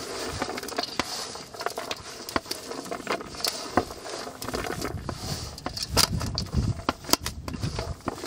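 Hands squeezing and mixing a crumbly minced-mutton kola urundai mixture in a stainless steel vessel: irregular crackling and rustling, with frequent sharp clicks and scrapes against the metal.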